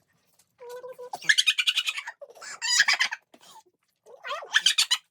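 High-pitched shrieking laughter in several bursts, loudest about a second and a half in and again near the end.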